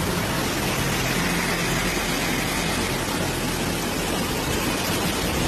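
Steady, even rushing noise of fast-flowing floodwater and heavy rain.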